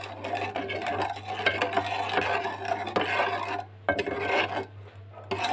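A steel spoon stirring milk in an aluminium pot, scraping against the metal in a continuous rough rasp with small clicks, with two short breaks in the second half.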